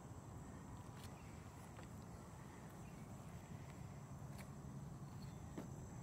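Quiet outdoor background: a low steady rumble with a few faint clicks scattered through it.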